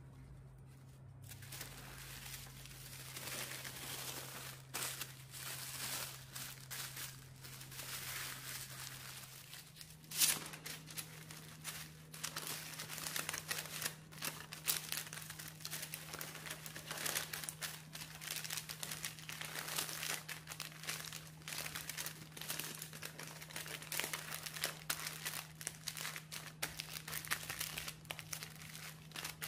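Parchment paper and a gold foil wrapper crinkling and rustling as they are folded by hand around a grilled sandwich, with a sharp crackle about ten seconds in.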